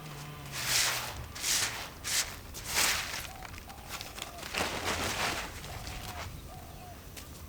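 Dry paddy straw rustling in a series of irregular swishes, roughly one a second, typical of rice bundles being handled and threshed by hand. A brief low drone sounds in the first second.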